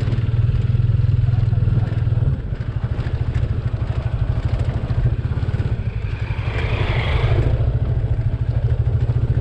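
Motorcycle engine running while riding, a steady low pulsing throb that eases off a little about two seconds in. A brief rougher noise rises over it about seven seconds in.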